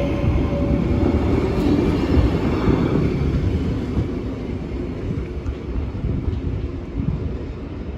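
VIRM double-deck electric train pulling away and accelerating. A steady whine from its traction equipment cuts out about a second in. The running rumble then grows steadily fainter as the train moves off.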